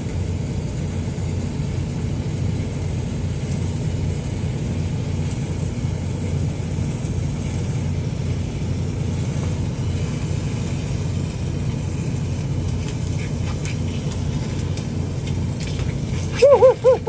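A steady low engine-like drone, running evenly throughout. About half a second before the end comes a short, loud run of about four quick rising-and-falling chirps.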